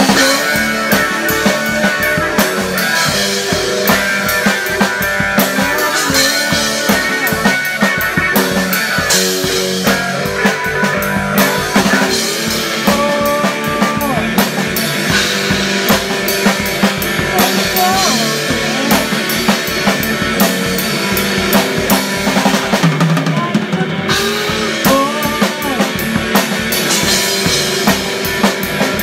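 Rock band playing: an electric guitar over a full drum kit keeping a steady beat with cymbals, with a few guitar notes bent up and down in pitch.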